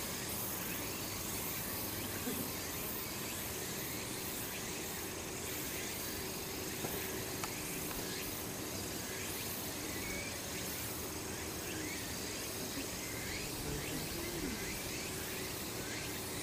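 Steady outdoor ambience: a constant hiss of insects, with faint distant voices and a few faint short chirps.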